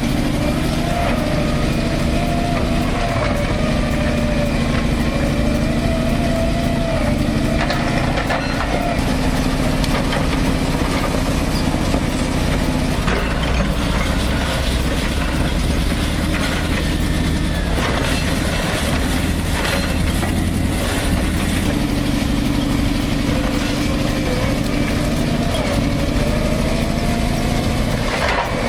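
Large diesel engine of heavy machinery running steadily, its pitch wavering up and down as it works.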